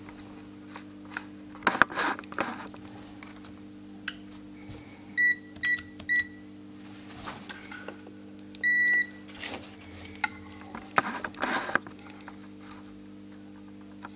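Digital multimeter's buzzer beeping: three short beeps about half a second apart, then one longer beep some three seconds later. Light clicks and taps of test probes and handling on a circuit board come between them, over a steady low hum.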